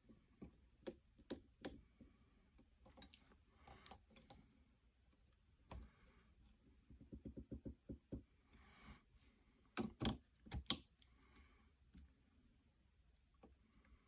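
Scattered clicks and knocks from a clamp-style camera mount being adjusted on an airsoft rifle, with a quick run of about a dozen rapid clicks around seven seconds in and a few sharper knocks about ten seconds in, the loudest near eleven seconds.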